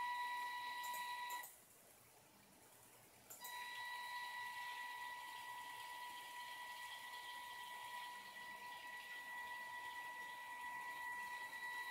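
Steady high-pitched whine of a TETRIX robot's DC drive motors as it turns in place on mecanum wheels. The whine cuts out after a couple of clicks about a second and a half in and starts again about two seconds later.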